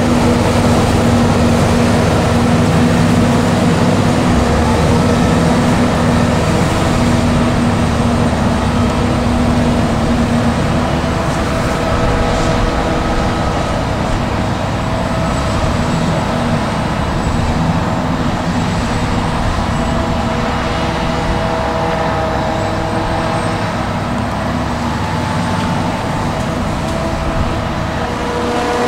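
Heavy diesel farm machinery running steadily under load: a forage harvester and tractors at work chopping maize. The machines give a loud, continuous drone with several held tones that drift slightly in pitch.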